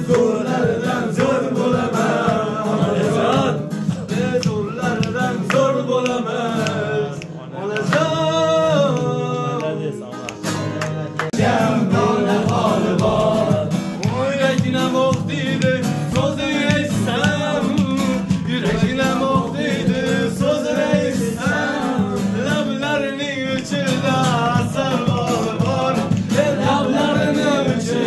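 A man singing an Uzbek song to a strummed acoustic guitar.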